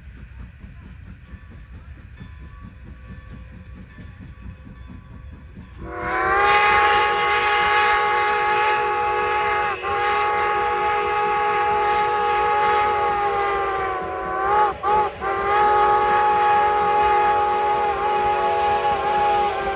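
Steam whistle of Strasburg Rail Road No. 90, a 1924 Baldwin 2-10-0 Decapod locomotive, blowing the grade-crossing signal as it approaches: two long blasts, a short one, then a long one. The whistle starts about six seconds in, after a stretch of faint low noise.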